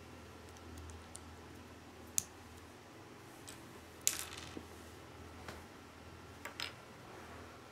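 Small plastic Lego bricks being pressed together and handled: several sharp clicks, the loudest about two seconds in and about four seconds in, the second with a brief scrape.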